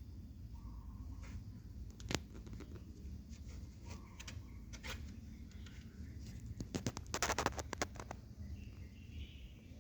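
Young kittens mewing faintly a few times, with scattered clicks and a dense run of scratching clicks about seven seconds in.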